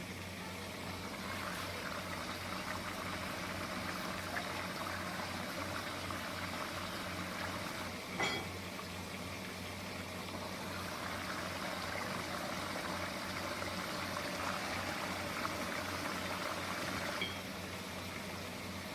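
Steady watery hiss of liquid running or bubbling, over a low steady hum, with one sharp click about eight seconds in.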